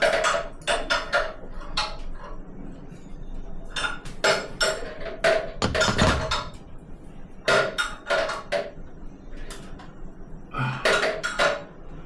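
Metal tools or fittings clinking and knocking against each other in irregular clusters of sharp strikes, each with a short metallic ring.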